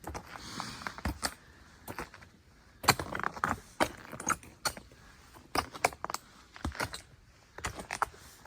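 Footsteps on a snowy mountain trail: an irregular run of crunching steps with sharp clicks and small jangles, one or two a second.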